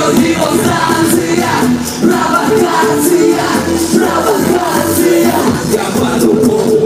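Loud live pop music from a concert stage, with a voice singing over it.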